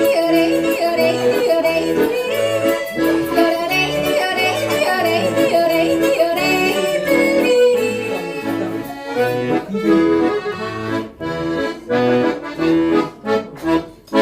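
Accordion playing a yodel-style tune over an alternating oom-pah bass. In the last few seconds the playing breaks into short, separated chords with gaps between them, as at the close of a piece.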